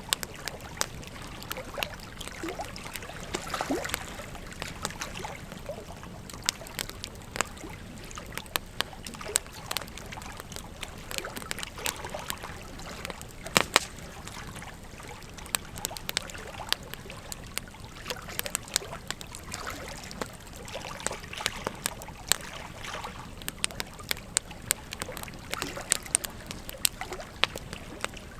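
Wood fire crackling in a fireplace: a steady low hiss with irregular sharp pops and snaps, the loudest about fourteen seconds in.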